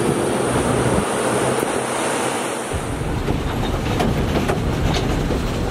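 Wind rushing over the microphone and road noise from a moving vehicle, with the low rumble growing heavier about halfway through.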